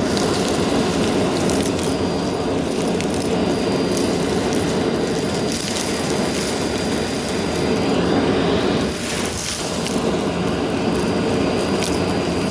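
Vacmaster Captura vacuum cleaner running steadily with a thin high whine, with scattered crackles and ticks of debris being sucked up.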